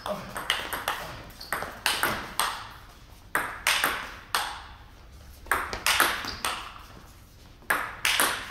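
Table tennis rally: the ball clicks off the rackets and bounces on the table in quick hit-and-bounce pairs, with short pauses where a player has dropped back from the table. Each click rings briefly in the hall.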